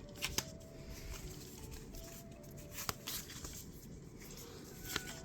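Pokémon trading cards handled by hand as a pack is sorted through: quiet paper rustling with a few light clicks.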